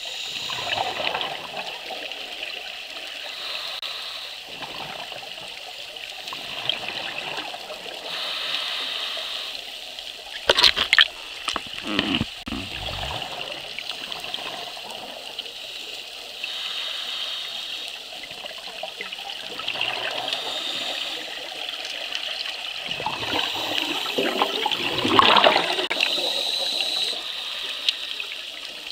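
Underwater bubbling of scuba divers' exhaled air from their regulators, swelling and fading every few seconds. There are a few sharp knocks a little before the middle.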